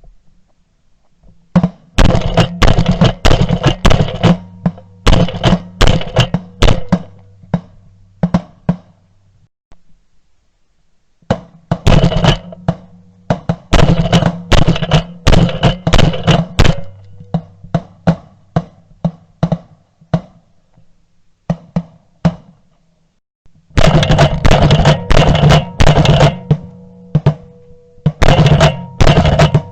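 Background music with heavy drums and a driving beat over a sustained bass line, stopping briefly twice before starting again.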